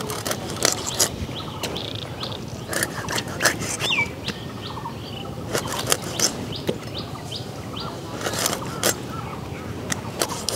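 Catfish being chopped on a boti blade over a steel bowl: sharp knocks and clicks come in small clusters of two or three. Birds chirp throughout.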